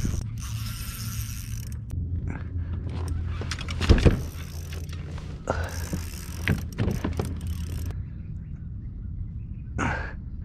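Shimano Vanford 1000 spinning reel cranking and clicking while a hooked stingray pulls against the bent rod, with scattered handling knocks and a loud thump about four seconds in.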